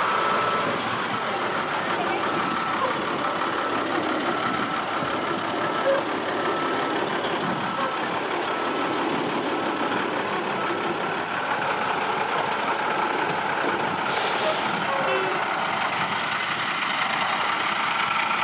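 Diesel school bus engine (International DT466E) running under load as the bus backs up, towing a stuck car out of soft sand, with its reversing beeper sounding about once a second through the first half. A brief hiss of air about three-quarters of the way through.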